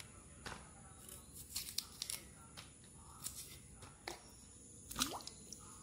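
Thick cassava peel being pulled and torn away from the root by hand: a series of short, irregular tearing rasps, the loudest about five seconds in.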